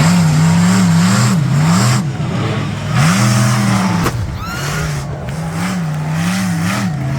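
A vehicle engine on the track revving up and down again and again in quick throttle blips, with a sharp crack about four seconds in.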